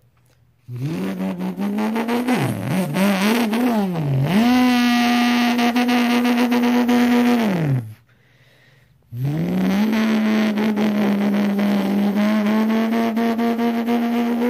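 A man's voice doing a car-engine impression with his mouth: a buzzing engine note that revs up, wobbles up and down, holds steady and dies away. After a brief pause it revs up again and holds. The impersonator takes it for a Nissan GT-R R35.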